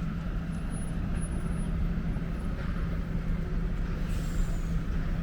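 Wind buffeting the microphone in a low, uneven rumble, over a steady low engine hum.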